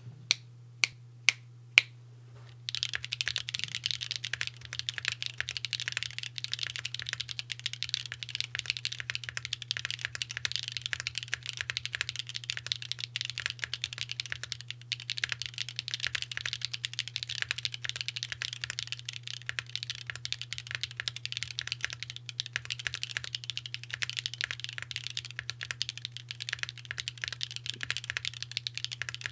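Mode Envoy mechanical keyboard with Owlab Neon linear switches on an aluminium plate, JTK keycaps, unfoamed and without screws, being typed on. There are four separate keystrokes about half a second apart, then fast continuous typing from about three seconds in, over a faint steady low hum.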